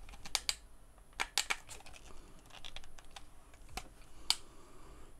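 A handful of sharp plastic clicks and taps from a gamepad-style RC car remote control being handled and its buttons pressed while switching it on.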